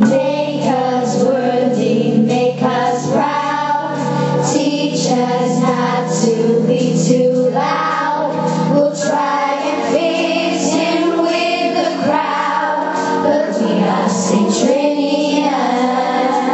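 A group of young female voices singing a song together over a musical accompaniment with steady held chords.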